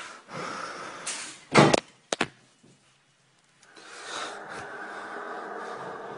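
A window being opened: a loud clunk and a couple of quick clicks from the latch and frame. About four seconds in, a steady drone with faint held tones comes in from outside: the unexplained noise that is being recorded.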